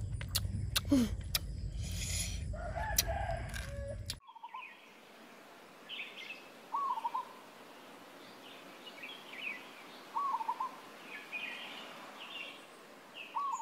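Close-up eating sounds of boiled stingray: wet chewing and mouth clicks. About four seconds in this cuts to birds calling in the forest, one bird repeating a short warbling call about every three seconds among softer chirps.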